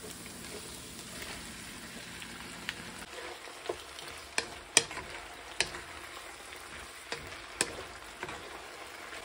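Raw shrimp frying in a pan of onions, butter and olive oil with a steady sizzle, while a wooden spatula stirs them. Sharp knocks of the spatula against the pan come every half-second to second from about three seconds in.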